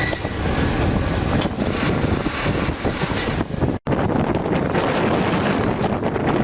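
Link-Belt diesel pile hammer running, its blows blended into a steady heavy rumble, with wind buffeting the microphone. The sound cuts out for an instant just before four seconds in.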